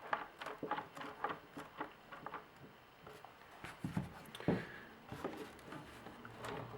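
Close-up handling noises from working on the repair: a quick run of small clicks and taps, with two heavier knocks about four and four and a half seconds in.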